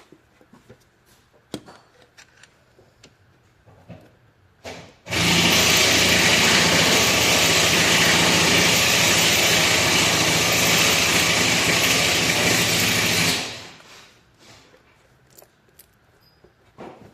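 A power tool's small motor runs steadily for about eight seconds, starting about five seconds in and winding down near the end, with light clicks and handling before and after.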